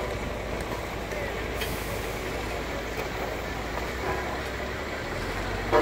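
Steady low engine rumble from heavy road-paving machinery running at a constant pace.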